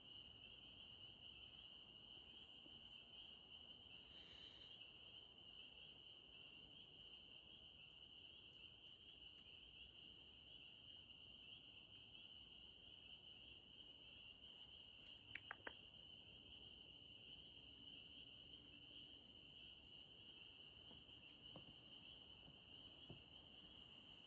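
Faint frog chorus: a dense, steady, high-pitched trill that holds one pitch, with three quick soft clicks about fifteen seconds in.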